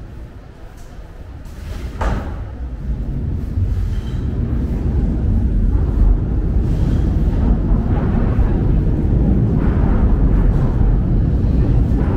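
Busy market crowd chatter over a heavy low rumble that swells from about two seconds in and stays loud.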